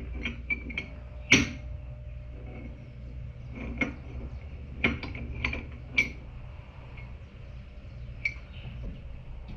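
Metal clinks and knocks as flat steel strips are handled in a bench vise and its handle is worked: about half a dozen separate clanks, the loudest a sharp one about a second in.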